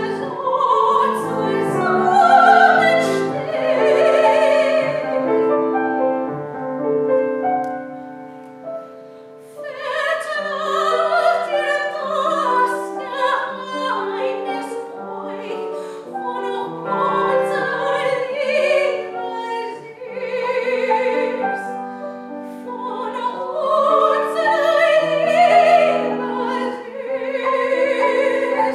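A woman's operatic voice singing a classical art song with vibrato, accompanied by grand piano. About six seconds in the voice stops and the piano plays softly for a few seconds. Singing resumes near ten seconds.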